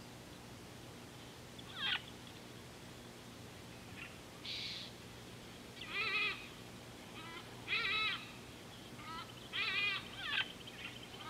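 An animal calling: about six short, wavering calls spaced a second or two apart, the last ones close together, over a steady low hum.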